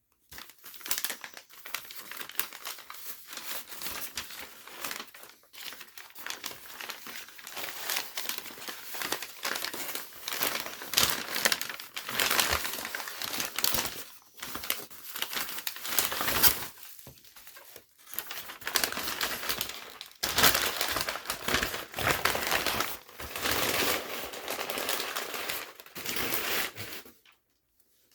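Packaging being unwrapped by hand, crinkling and rustling in irregular bursts with short pauses; it stops near the end.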